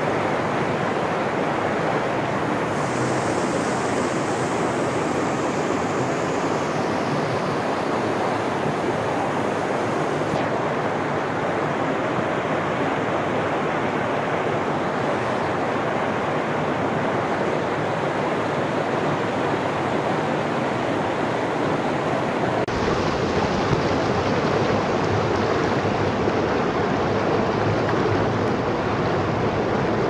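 Mountain stream rushing over rocks, a steady noise of white water. Its character changes abruptly a few times, deeper and fuller from about 23 seconds in.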